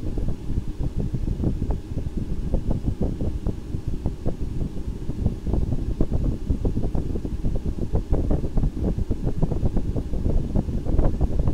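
Wind buffeting the microphone: an uneven low rumble with irregular flutters.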